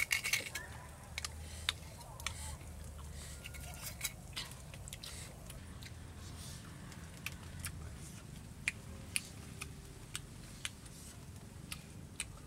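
Eating sounds: scattered wet smacks and clicks of chewing, with bamboo chopsticks against food, and a denser cluster of them right at the start.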